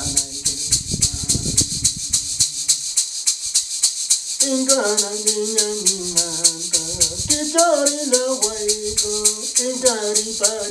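A handheld rattle shaken in a steady rhythm, about five shakes a second, under a solo voice singing an icaro, a shamanic healing chant. The singing breaks off for about a second about three seconds in, then resumes.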